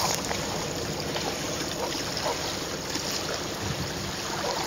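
Steady rush of wind on the microphone, with small waves lapping at the shoreline.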